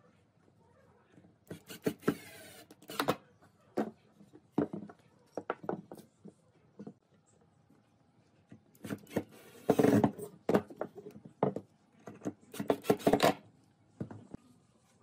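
A cordless drill driving wood screws into a wooden rail in short bursts, about two seconds in and twice more past the middle. Between the bursts come scattered knocks and clicks of timber and screws being handled.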